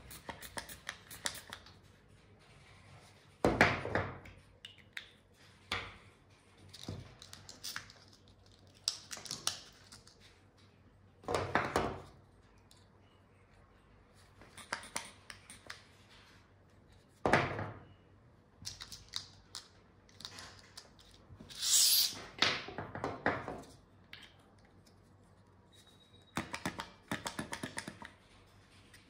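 Handling noises from assembling a veterinary continuous syringe: irregular clicks, taps and rubbing as a metal nozzle is screwed onto the syringe and its plastic tubing is handled, with a few louder knocks.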